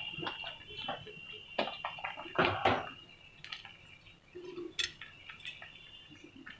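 Kitchen clatter of metal utensils and dishes: a series of knocks and clinks, the loudest pair about two and a half seconds in and a sharper single clink near the five-second mark.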